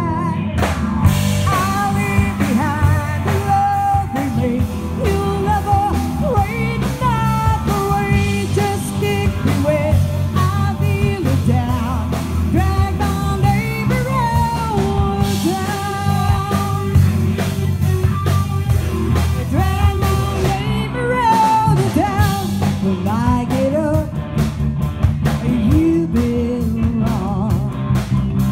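Live rock band playing on stage: electric guitars, bass guitar and a drum kit, with a lead melody that bends and slides in pitch over a steady beat.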